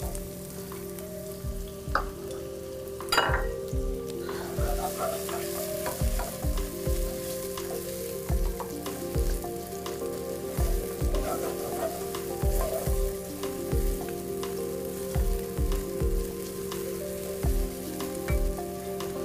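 Chopped onion and garlic sizzling in hot olive oil in a nonstick frying pan, stirred and pushed around with a wooden spatula.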